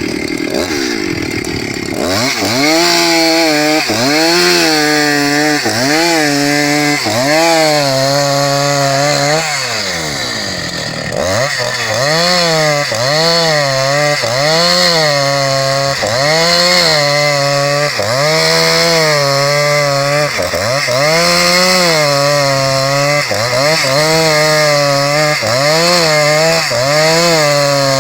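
Husqvarna 272XP two-stroke chainsaw ripping a cedar log lengthwise into a plank, its engine pitch dipping and recovering about once a second as the chain bites into the wood under load. About ten seconds in, the revs fall away briefly, then the saw picks back up and the rhythmic dipping resumes.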